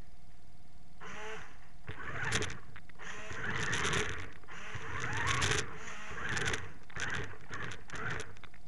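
Small geared electric drive motors of a homemade toy robot whirring in short stop-start bursts, their pitch wavering, as the robot turns in place. A faint steady hum runs underneath.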